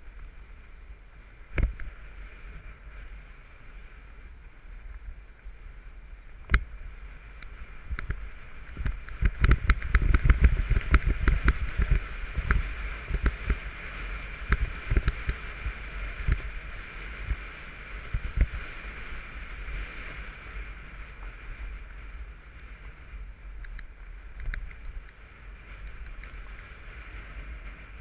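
Mountain bike running fast downhill on a dirt trail: a steady rush of wind and tyre noise, with knocks and rattles from bumps. The knocks come thickest and loudest in the middle stretch.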